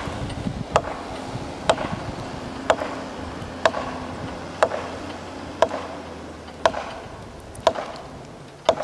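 Sharp wooden knocks about once a second, nine in all, like blows driving a felling wedge into a standing spruce to tip it. A low engine idle runs underneath and fades near the end.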